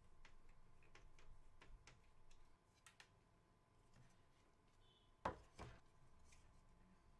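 Faint clicks and small knocks of hands handling fan cables and plastic fan parts in a computer case, with two louder knocks about five seconds in, over near silence.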